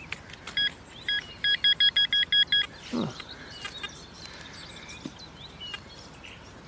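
Metal detector beeping over a metal target in a dug-out plug of soil: a few single short high beeps, then a quick run of them, about eight a second. A short falling sound follows.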